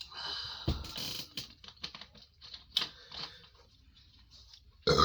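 Close-miked mukbang eating sounds: wet chewing, lip smacks and mouth clicks, busiest in the first second or so and sparser after. Near the end there is one short, louder sound.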